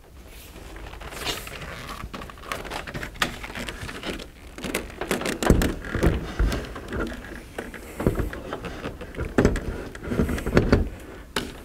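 Hitachi StarBoard interactive whiteboard being lifted and hung on wall-mounted hooks: an irregular run of knocks, scrapes and rattles, with the heaviest thumps about halfway through and again near the end.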